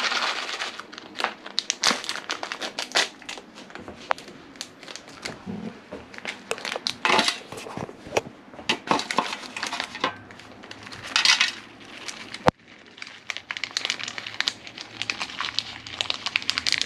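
Plastic packet crinkling and rustling in the hands as grated Parmesan is shaken out of it, with many small irregular clicks and rustles. There is a single sharp click about twelve seconds in.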